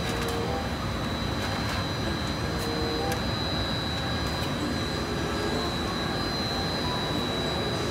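Steady mechanical roar with a constant high-pitched whine, unchanging throughout, and a few faint clicks from wiring being handled.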